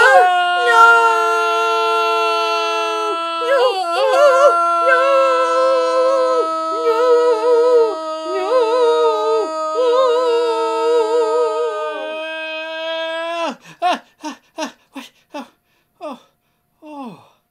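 Two puppeteers' voices in a long, drawn-out anguished wail. One pitch is held level while the other wavers and breaks, sob-like. About 13 seconds in it gives way to a run of short, falling cries.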